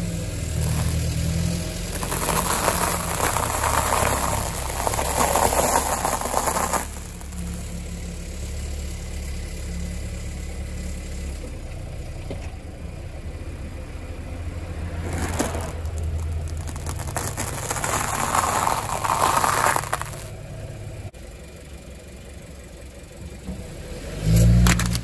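A car engine runs at low speed as the car's tyres roll over objects. Two longer stretches of noisy crunching come about two seconds in and again near three-quarters of the way through, with a sharp crack between them and a loud low thump near the end.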